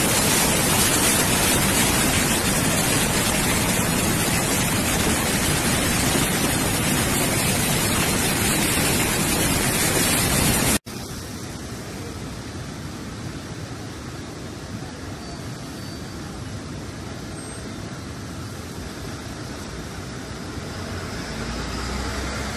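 Loud, steady rushing roar of a torrential flash flood in a river. About 11 s in it cuts abruptly to a much quieter, steady rush of floodwater, which grows a little louder near the end as churning water surges against a concrete wall.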